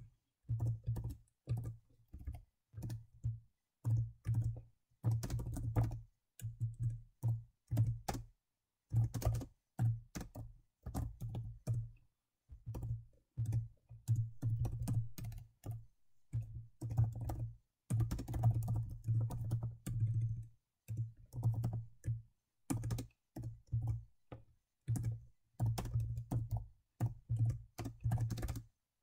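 Typing on a computer keyboard in bursts of rapid key clicks with short pauses between. A low hum comes in with each burst of typing.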